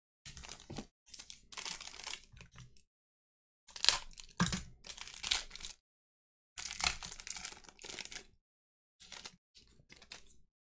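Foil wrapper of a football trading-card pack being torn open and crinkled, in several bursts with short silent gaps between them.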